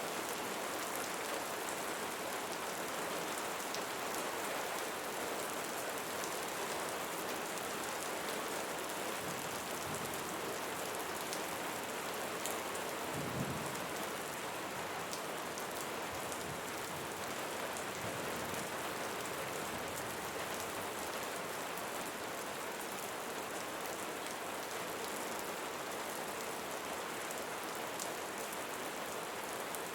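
Steady rainfall: a dense, even hiss with many fine drop ticks. There is one brief low thud about halfway through.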